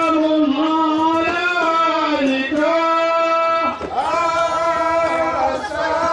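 Men singing a chant in long held notes, one strong melodic line carrying over the group, with a brief break about four seconds in.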